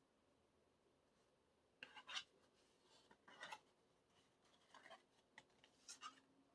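Faint rubbing and scraping of a cardboard album digipack and its cards being handled, in a few short strokes.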